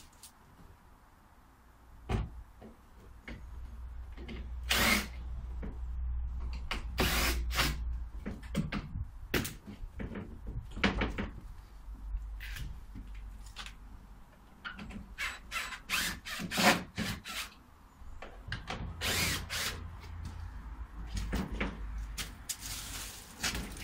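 Cordless drill-driver run in many short bursts, backing out the screws that hold fence panels to a wooden gate post.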